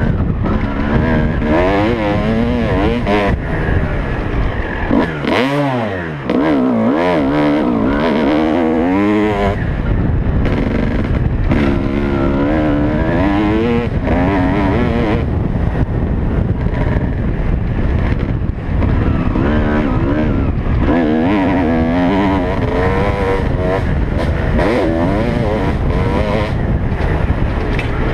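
Motocross bike engine ridden hard on a dirt track, the revs climbing and falling over and over with throttle and gear changes, over a steady rumble of wind and engine noise. About five seconds in, the throttle is shut briefly, the revs dip low, then pick up again.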